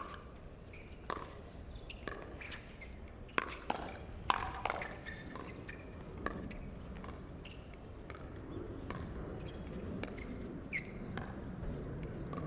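Pickleball rally: paddles striking the plastic ball in sharp pops at uneven intervals, several quick exchanges in a row. A low background noise swells in the second half.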